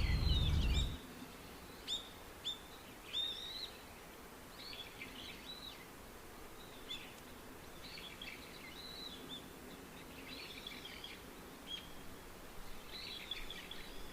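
Small birds chirping and singing in short, varied phrases, over a faint steady outdoor background. A low rumbling noise stops about a second in.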